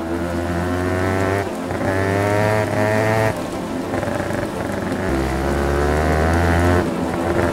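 Yamaha DT125R's single-cylinder two-stroke engine revving as the dirt bike pulls away up through the gears, the pitch climbing in each gear and dropping at three shifts.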